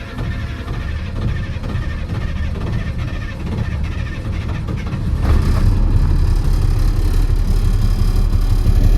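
Truck engine running just after a start, a steady low-pitched run that gets louder about five seconds in.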